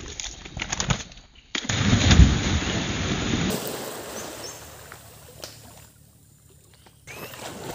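A person jumping into a pond: a sudden loud splash about two seconds in, then the water churning and slowly settling.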